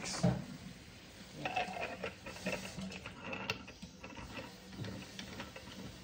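Small scattered metal clicks and scrapes as the brass parts of a Belgian balancing siphon coffee maker are handled and the cap is screwed onto its water boiler, over a faint steady hum.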